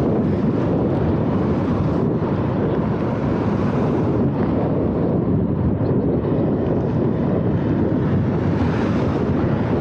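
Wind buffeting the microphone of a camera on a moving bicycle: a steady, dense low rumble with no let-up.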